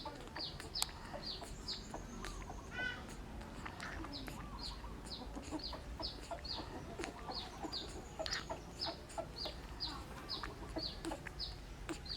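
Chick peeping: short, high, falling chirps repeated steadily about three times a second, with a brief rising run of quick notes about three seconds in.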